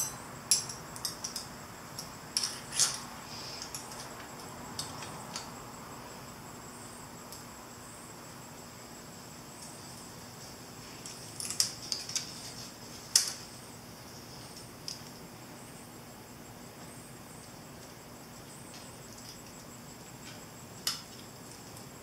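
Small metal parts clicking and clinking as turn-signal mounting brackets are handled and their bolts snugged up by hand on a motorcycle's front forks. Sharp clicks come in scattered clusters in the first few seconds and again around eleven to thirteen seconds in, with one more near the end.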